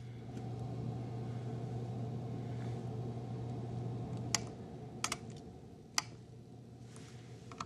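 Room air-conditioning unit's fan running with a steady hum, dropping to a quieter level about four seconds in as the thermostat's fan button is pressed. Several sharp plastic button clicks from the thermostat follow.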